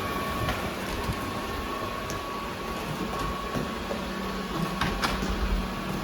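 Robot vacuum cleaner running: a steady motor hum with a thin high whine, and a few sharp clicks about five seconds in.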